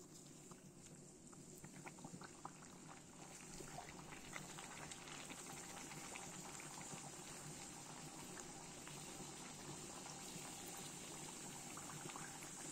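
A disc of bhatura dough deep-frying in hot oil: the oil sizzles and bubbles, with scattered crackles as the dough goes in, growing within a few seconds into a steady, dense sizzle.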